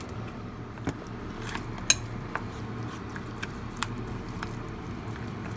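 Wooden chopsticks stirring seasoned minced chicken in a stainless steel bowl, mixing in the marinade: soft squishing with irregular sharp clicks as the chopsticks knock the metal sides, the loudest about two seconds in, over a steady low hum.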